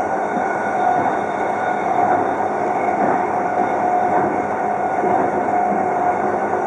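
Inside a JR East E233-3000 series motor car (MoHa E232) running at speed: the Hitachi IGBT-VVVF-driven MT75 traction motors and gearing give a steady mid-pitched whine over continuous rolling noise from the wheels and rails.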